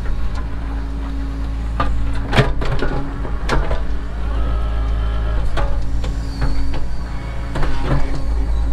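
Cat 307 mini excavator's diesel engine running with a steady low hum while the hydraulics work the boom and bucket. A brief hydraulic whine rises and fades in the middle, and there are a few sharp clanks and knocks.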